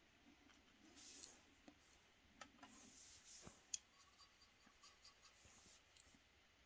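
Faint, soft scratchy strokes of a small synthetic watercolour brush dabbing paint onto paper, with a few light ticks and one sharper click a little before the middle.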